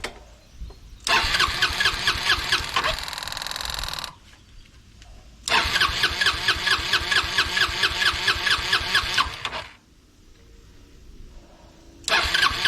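Honda Helix scooter engine cranked on its electric starter in three bursts without catching, each burst pulsing at about four beats a second. It is being turned over to draw fuel through a newly fitted fuel pump and fill the fuel filter.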